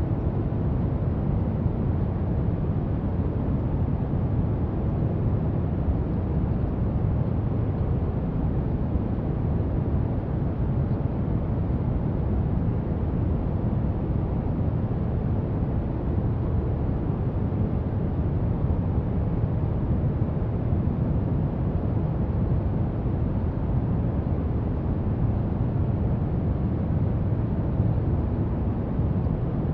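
Brown noise: a steady, deep rushing hiss with most of its weight in the bass, unchanging throughout.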